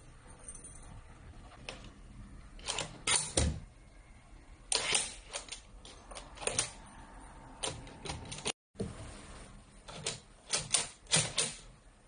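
Smart door lock and its hard plastic and metal parts being handled: a series of irregular sharp clicks and knocks, with a brief dead drop-out about two-thirds of the way through.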